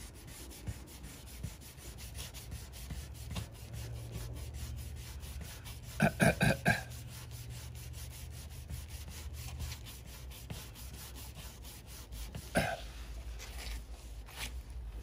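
Hand sanding block with sandpaper rubbing back and forth over primer on a 1972 Datsun 240Z's steel door, in quick even strokes, feathering the primer edges around a filled door ding. About six seconds in a person makes four short, louder throat sounds, and one more about twelve seconds in.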